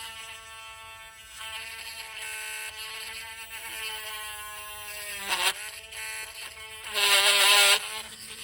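Small electric hand drill running with a steady whine as it drills into a plastic toy gun mount. Its pitch sags briefly about five seconds in, and near the end it turns louder and harsher for nearly a second as the bit bites into the plastic.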